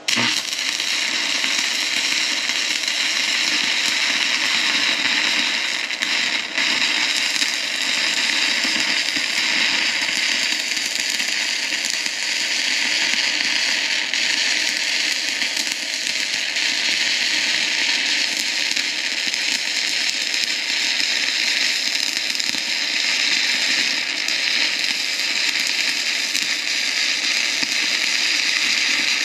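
Stick-welding arc from a 3/32-inch E6013 rod at about 110 amps: a loud, steady crackling hiss, burning as one continuous run. It starts abruptly and cuts off suddenly at the end, with a brief dip about six seconds in.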